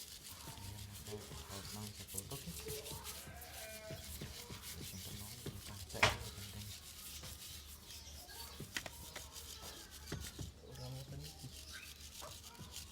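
Stiff brush scrubbing motorcycle engine parts in repeated uneven strokes, with one sharp knock about six seconds in.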